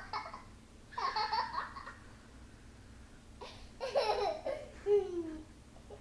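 A young child laughing and babbling in three bursts, the last ending in a vocal sound that slides down in pitch.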